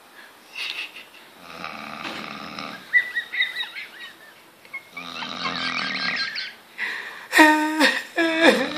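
A person snoring loudly: two long rasping snores about three seconds apart, with a wavering whistle between them, then loud drawn-out vocal sounds near the end.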